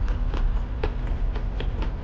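Close-miked chewing of a mouthful of rendang: irregular wet mouth clicks and smacks, about five a second, over a steady low hum.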